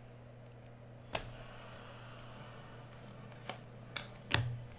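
Trading cards being handled and slid against one another, with a few sharp clicks and snaps; the loudest comes near the end. A steady low hum runs underneath.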